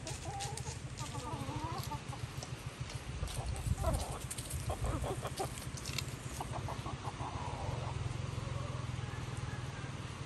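Chickens clucking in short runs of calls, loudest about four to five seconds in, over a steady low hum.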